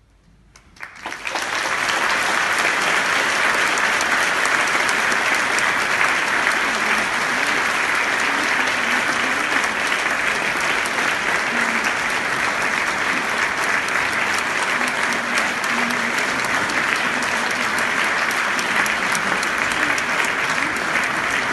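Audience applause in a concert hall, starting about half a second in and building within a second to steady, dense clapping.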